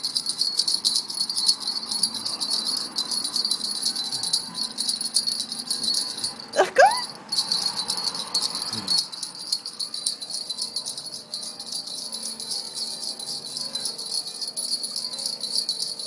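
Small handbells being shaken and rung continuously in a fast, dense jangle. About six and a half seconds in, a short, loud rising cry rings out above them.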